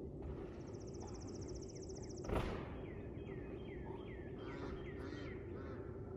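Birds chirping in short falling calls, with a fast high trill in the first two seconds, over a steady low hum. A single loud thud about two seconds in.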